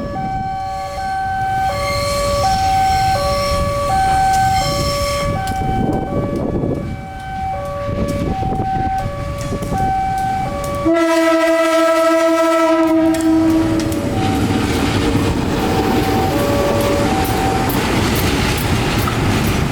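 CC 201 diesel locomotive sounding one long horn blast about eleven seconds in, lasting a couple of seconds, over the steady running of the locomotive and train. A two-note chime alternates steadily before and after the blast.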